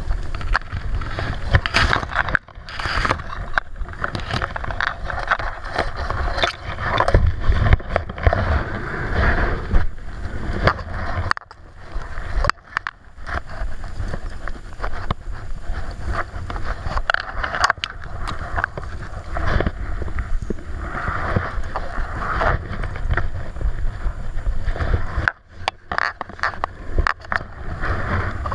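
Gusting wind buffeting the microphone over a steady rush of river water, dropping away briefly about a third of the way in and again near the end.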